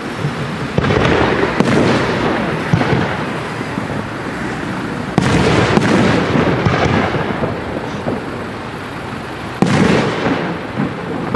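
Aerial firework shells bursting: sharp bangs about a second in, midway and near the end, with smaller reports between and a continuous rumbling din of bursts and their echoes throughout.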